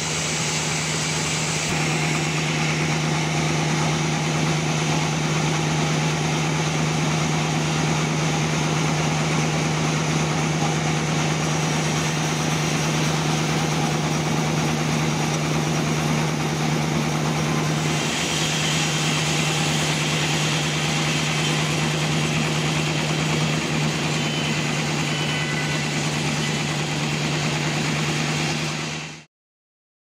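Sawmill machine running steadily, a constant hum with a hiss over it; the sound turns brighter about 18 seconds in and stops abruptly near the end.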